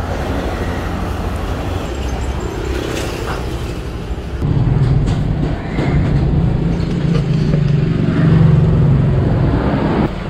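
Road traffic: vehicle engines running by the roadside as a steady low rumble, which grows louder and heavier about halfway through.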